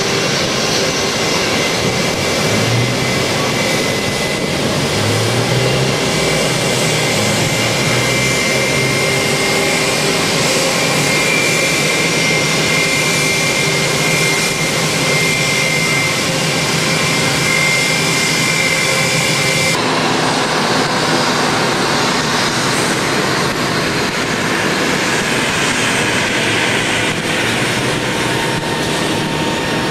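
Airbus A320 jet engines running, a steady high whine over a broad rumble. About twenty seconds in, the sound cuts to an ATR twin-turboprop airliner's engines and propellers running as it taxis.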